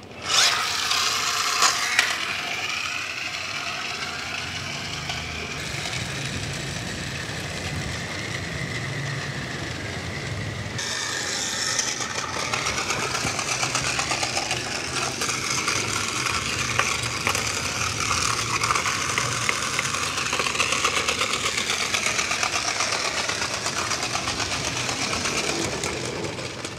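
Battery-powered plastic toy cars with gear-shaped wheels running across a tiled floor: a small electric motor whirring and plastic gears rattling without a break. The sound changes abruptly about five and eleven seconds in.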